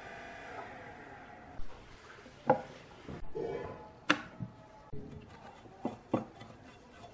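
Small plastic cooling fans and a black metal fan bracket handled and set down on a wooden workbench: several sharp knocks and clicks. Near the end a paintbrush starts scrubbing dust off the bracket with quick scratchy strokes.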